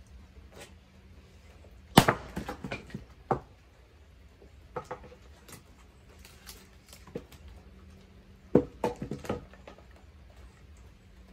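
Firewood being split by hand: two sharp strikes about six and a half seconds apart. Each is followed by a brief clatter of knocks as the split pieces fall and are handled.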